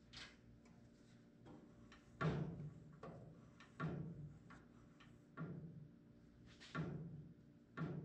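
Hand wrench being worked on a bolt of the brake pedal linkage under the car, making five sharp metal knocks with a short ringing tail, about one every one and a half seconds, with faint ticks between them.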